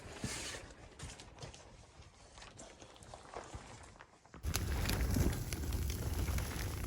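Irregular crunching steps in snow, then about four seconds in an abrupt change to a much louder, steady rushing noise with scattered crackles.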